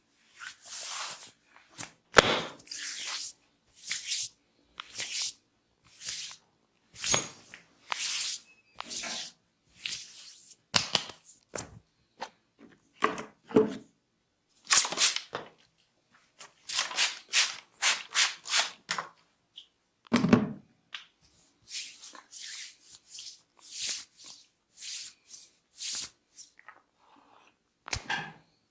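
Massage strokes of hands on skin: a run of short rubbing and brushing swishes, one after another about every half second to second, with a few sharper slaps or knocks among them, the loudest about two seconds in.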